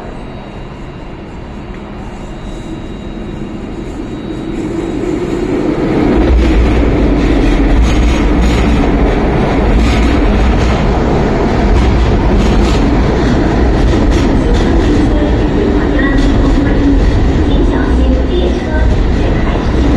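MTR Island Line M-Train pulling into the station. Its rumble grows as it approaches, then from about six seconds in it turns into a loud, steady rumble as the cars run past along the platform.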